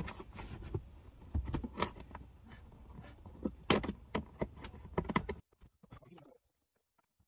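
Irregular clicks and light knocks of a car's plastic glove box and dash trim being handled and fitted into place, with small screws being set in. The sound cuts off abruptly about five seconds in, leaving near silence.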